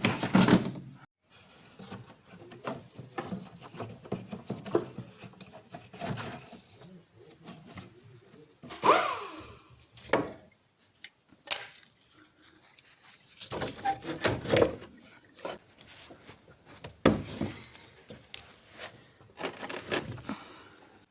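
Intermittent knocks, clicks and rattles of tools and parts being handled during car servicing work, with a brief squeak about nine seconds in.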